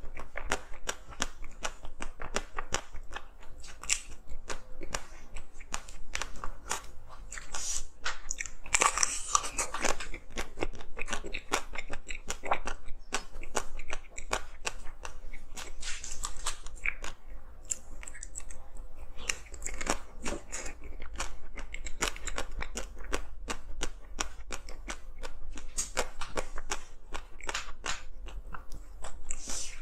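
Close-miked mouth sounds of someone biting and chewing hard ice: dense, irregular crunching and crackling as the ice breaks between the teeth.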